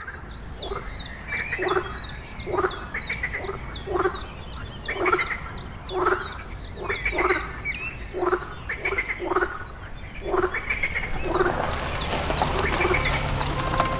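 Frogs croaking in a steady series of short calls, under a high, quick, falling chirp repeated about three times a second that fades out past the middle. A swell of noise builds over the last few seconds.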